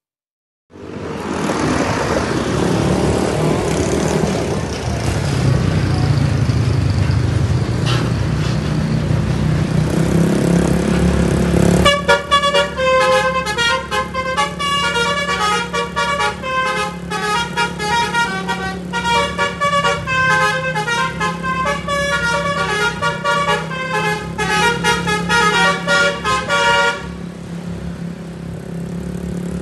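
Bus engine and road noise for about ten seconds. Then a basuri multi-tone musical air horn on the bus plays a fast melody of short notes for about fifteen seconds over the running engine. The horn stops near the end and starts again just at the close.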